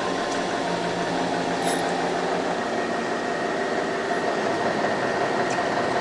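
Fishing boat's engine running steadily under a wash of wind and sea noise, as the boat is held in position.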